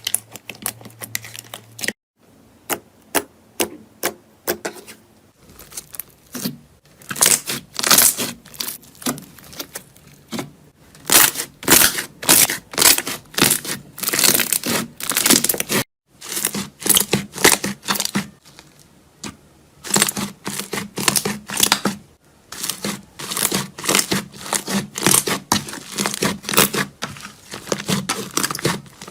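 Slime being squeezed, pressed and pulled by hand, giving dense runs of crackling and popping. The sound breaks off sharply about two seconds in and again about halfway through, where one clip cuts to the next.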